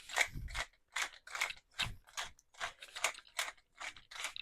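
Pepper mill grinding fresh pepper: a rhythmic crunching, about two to three turns a second.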